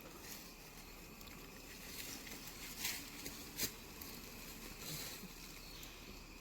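Faint outdoor background with a few short scuffs or crackles near the middle, the sharpest about three and a half seconds in.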